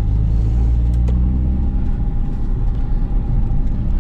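Nissan 350Z's 3.5 V6 running steadily at low revs through a straight-piped exhaust, a low engine note that holds roughly the same pitch.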